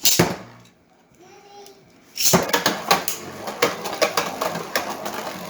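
A sharp plastic clatter, then about two seconds in Beyblades are launched into a plastic stadium and spin, knocking against each other and the stadium wall in rapid clicks and rattles.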